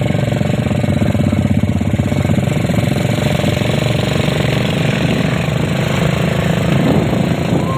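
ATV engine running steadily under way, with a fast, even firing pulse.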